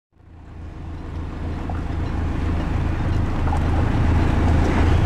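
Steady low engine hum with wind and water noise, fading in from silence and growing louder.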